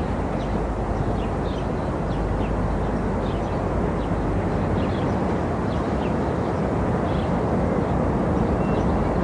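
Steady outdoor background noise, like distant traffic, with faint short chirps, likely small birds, high above it.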